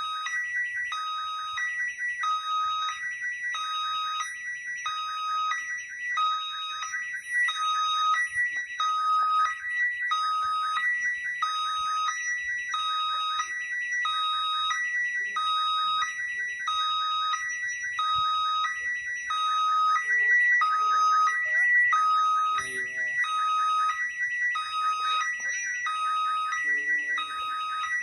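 Railway level-crossing warning signal sounding: an electronic two-tone alarm alternating between a lower and a higher pitch about once a second, steady and unbroken.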